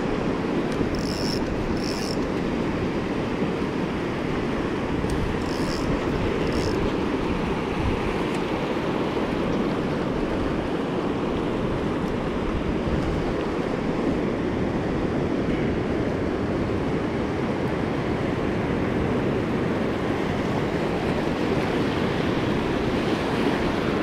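Steady rush of ocean surf washing through the shallows, with wind rumbling on the microphone.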